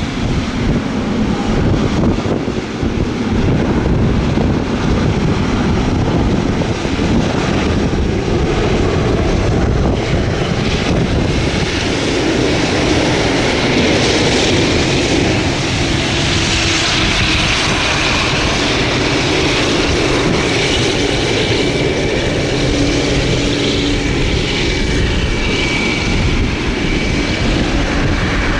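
Boeing 777 freighter's GE90 turbofan engines running with a loud, steady rush. A thin, steady whine joins in the second half.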